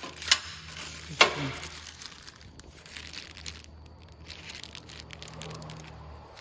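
Clear plastic hardware bags of bolts crinkling and rustling as they are handled. Two sharp clicks come in the first second or so.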